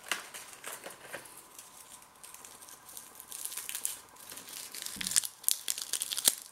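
Itsu crispy seaweed thin crackling as it is handled and broken between the fingers close to the microphone: a run of small sharp crackles, sparse at first and busier through the second half.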